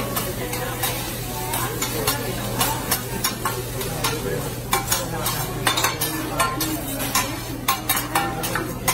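Metal spatulas scraping and clacking on a hot teppanyaki griddle while fried rice sizzles: a steady hiss under rapid, irregular sharp clacks.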